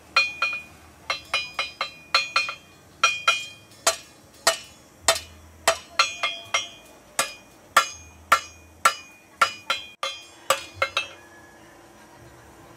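Hand hammer striking red-hot machete steel on a steel anvil, about two ringing metallic blows a second. The blows stop near the end.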